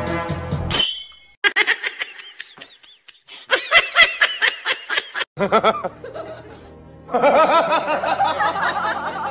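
Background music that cuts off under a second in, followed by repeated bursts of high-pitched laughter, with a longer, fuller stretch of laughter starting about seven seconds in.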